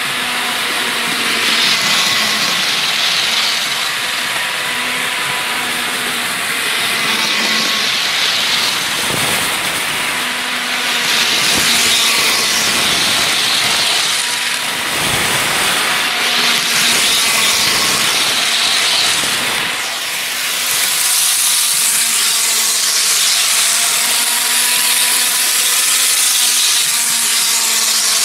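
HO scale model train running fast: the diesel locomotive's small electric motor whines steadily while the wheels rattle and hiss over plastic sectional track, getting louder and softer as the train laps past.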